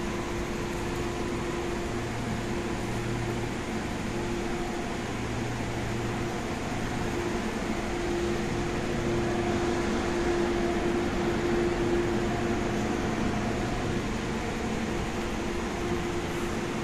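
Steady hum of a powered-up, stationary MTR A-Train's air-conditioning and auxiliary equipment, with a couple of held tones, growing a little louder around the middle. It is heard through the platform screen doors.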